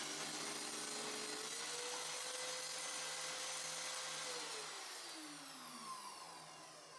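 Circular saw mounted upside down as a table saw, running free with no cut. Its pitch rises slightly as it comes up to speed, then falls steadily as it winds down after being switched off about four seconds in.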